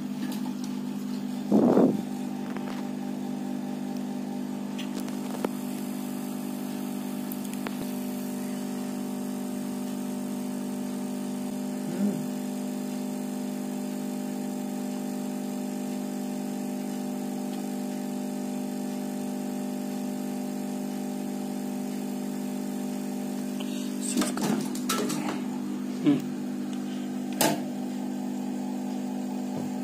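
Hot air gun's blower motor running with a steady hum, heating the earbud's plastic shell to soften its glue; it comes on at the very start. A few short knocks of handling sound over it, the loudest about two seconds in and a cluster near the end.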